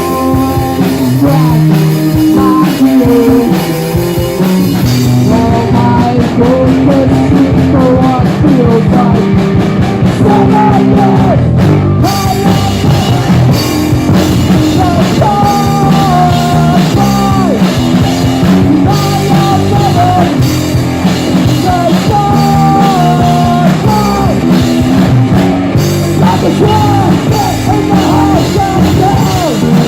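Rock band playing live: drum kit and guitars, loud and continuous, with a melody line that slides between notes above them.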